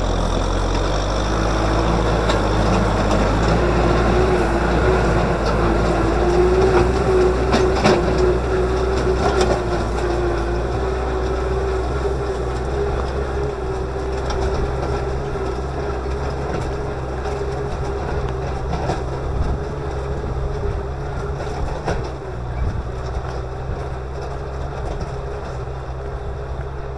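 Kubota M6040SU tractor's diesel engine running steadily under load while the tractor works a field pulling a disc plough. A few sharp knocks stand out, and the engine eases slightly in loudness over the second half as the tractor pulls away.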